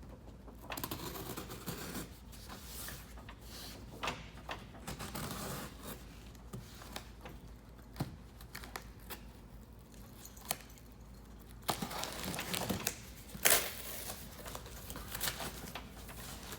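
A mail package being opened by hand: tearing, rustling and crinkling of packaging, with scattered sharp clicks and knocks, the loudest of them late on.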